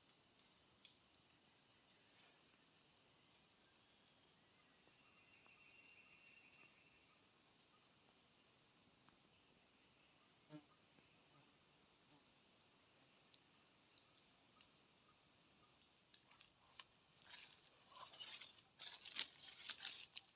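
Faint chirping of crickets and other insects in forest, pulsing steadily at a high pitch, with a short buzzing trill about five seconds in. Near the end a series of rustles and clicks comes in.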